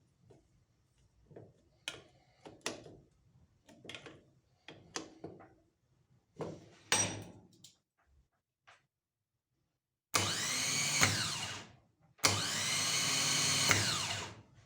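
Light knocks and clicks of parts being handled, then a rebuilt Valeo D6G321 starter motor spun on a bench test twice, each run about two seconds. Its whir rises in pitch and winds down as the power is cut.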